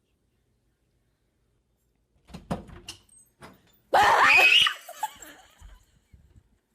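A person's loud, high-pitched squeal, rising in pitch and lasting under a second, about four seconds in, after a few faint knocks.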